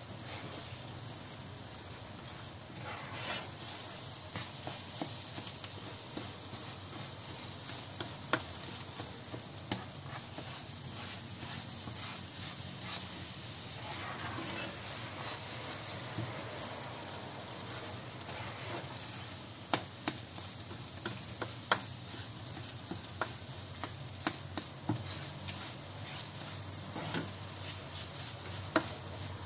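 Eggs sizzling in a frying pan while a spatula stirs and scrapes them, with scattered sharp clicks and taps of the spatula against the pan.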